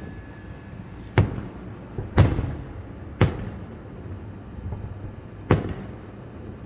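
Aerial fireworks bursting: four sharp booms at uneven intervals plus a smaller pop. The loudest comes about two seconds in and is followed by a short trailing rumble.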